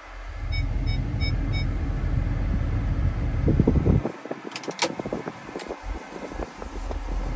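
Low rumble inside a pickup truck's cab, with four short, evenly spaced electronic beeps about half a second in while the backup camera is showing. The rumble cuts off abruptly about four seconds in, followed by a few sharp clicks, then returns near the end.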